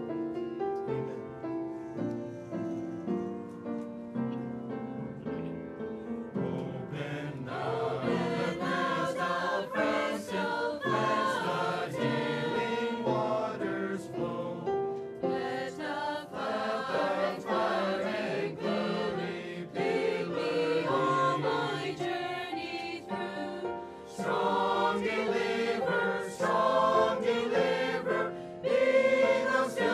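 Mixed choir of men and women singing together. It is softer for the first several seconds, then fuller and louder from about seven seconds in.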